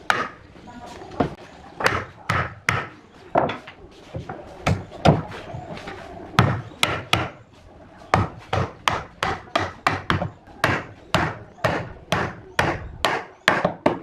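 A wooden mallet knocking the wooden door frame's stiles and rails together as the joints are driven home. Many sharp knocks, scattered at first and then coming steadily about two or three a second in the second half.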